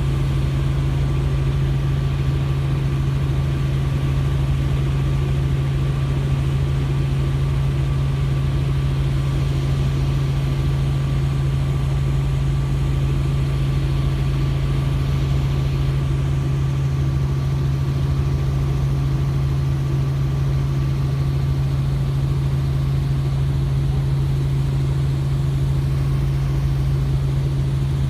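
Helicopter running steadily: a constant low drone with a thin, steady whine above it.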